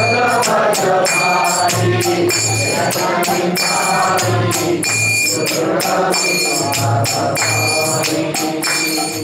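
Devotional kirtan music: hand cymbals (kartals) clash a steady beat several times a second over a drum and a wavering melodic line.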